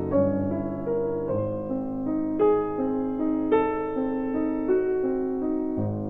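Background piano music: gentle notes and chords struck at an unhurried pace, each ringing out.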